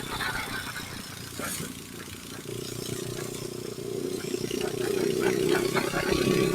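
A vehicle engine running, getting louder through the second half.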